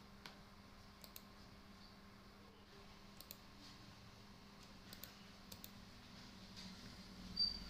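Faint, scattered clicks of a computer mouse and keyboard, a few seconds apart, over a low steady hum. Near the end comes a louder sound with a short high whistle.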